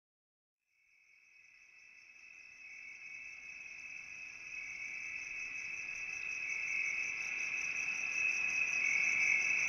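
Insects trilling: a steady high-pitched pulsing drone that fades in about a second in and grows steadily louder.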